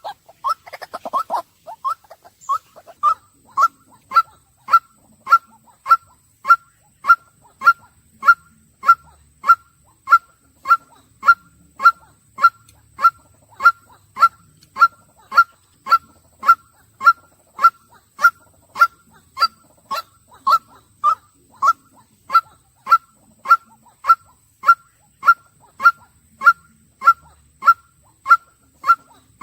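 White-breasted waterhen repeating a monotonous 'kwak' call, evenly spaced at just under two calls a second. A rougher, noisier call runs into the first second or so.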